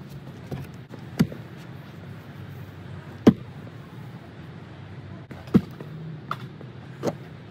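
Steady outdoor traffic rumble, broken by four sharp knocks spaced about two seconds apart, the second one the loudest.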